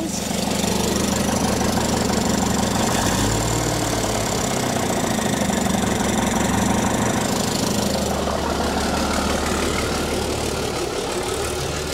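Cummins Big Cam III 855 inline-six turbo-diesel idling steadily, freshly brought back to life after sitting more than 25 years. The engine speed dips slightly about three seconds in, and a faint high whine stops about eight seconds in.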